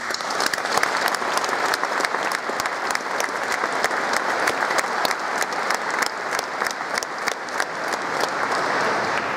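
Large audience applauding: many hands clapping together in a steady, even wash of claps.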